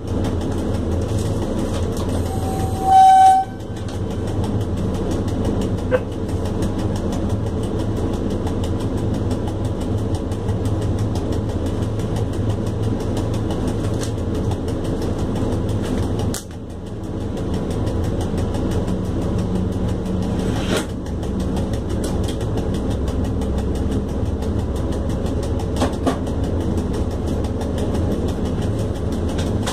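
Inside the cab of an ET22 electric freight locomotive on the move: a steady low rumble of the locomotive and its wheels on the track, with a short, loud horn blast about three seconds in.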